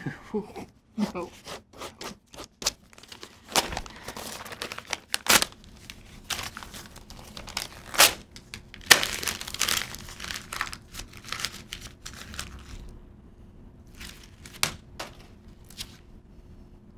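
Paper being crumpled and torn by hand: irregular crackling that is loudest in the middle and thins out to a few scattered crackles near the end, over a faint steady hum.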